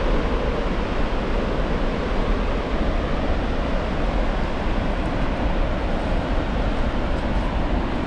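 Steady rush of water pouring down a large river waterfall, an even, unbroken noise with a heavy low rumble.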